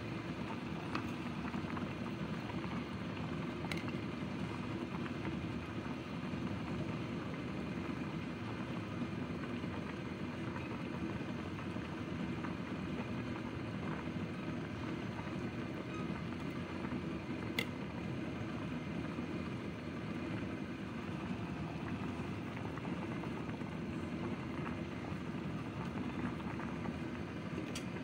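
Chicken soup at a rolling boil in a pot on a gas burner: a steady low bubbling rumble, with two faint clicks about 4 and 18 seconds in.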